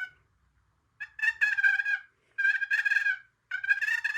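A turkey box call purring: the paddle is drawn across the box with very little pressure, giving three rolling notes about a second long each, in imitation of a turkey's purr.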